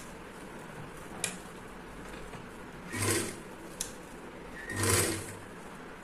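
Sewing machine stitching in two short bursts about a second and a half apart, each about half a second long, as pleats are sewn down a few stitches at a time. A couple of sharp clicks come between the bursts.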